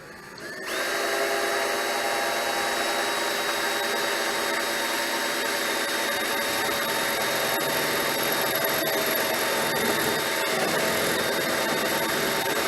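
Electric drill fitted with a spot weld cutter, drilling out spot welds in car body sheet steel. It spins up about half a second in, then runs steadily with a whining tone.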